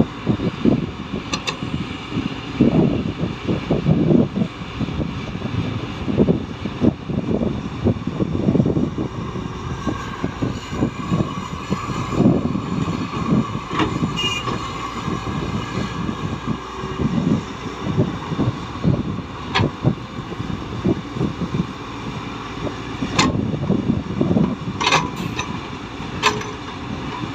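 A heavy excavator's diesel engine runs steadily under many irregular low thuds, with a few sharp clanks in the last third, the sounds of an excavator digging and loading.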